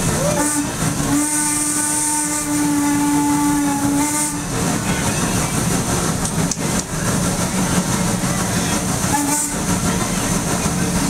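Steam whistle of Norfolk & Western 4-8-0 locomotive No. 475 blowing one long steady blast of about three seconds, then a short toot about nine seconds in, over the steady rumble and hiss of the train rolling.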